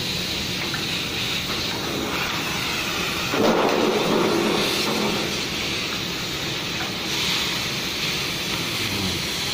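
Oxy-fuel cutting torch hissing steadily as it burns through a steel plate. The rush swells louder for a second or so about three and a half seconds in.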